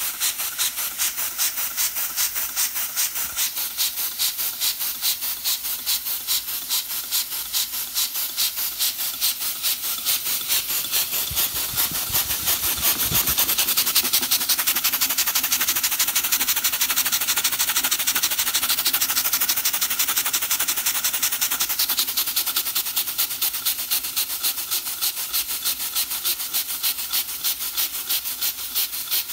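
Small homemade steam engine running: steam hissing out in rapid, even puffs as the flywheel turns. The beat gets louder and quicker around the middle, then settles back. There is a brief low bump about halfway through.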